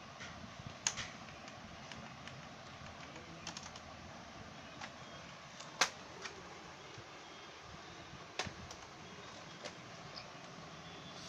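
Keys of a TVS Gold mechanical keyboard clicking one at a time at irregular intervals, about a dozen presses, the loudest about halfway through.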